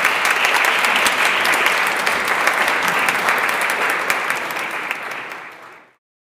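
Audience applauding, a dense clatter of many hands clapping that fades and cuts off about six seconds in.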